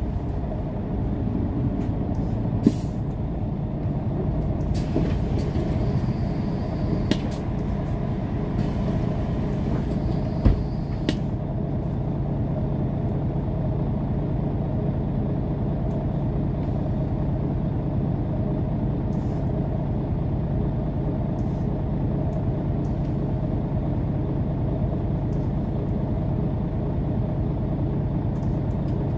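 Mercedes-Benz O530 Citaro Facelift city bus heard from inside the passenger cabin while driving at a steady speed: an even engine and road drone. A hiss runs from about five to eleven seconds in, and a few sharp knocks sound inside the cabin.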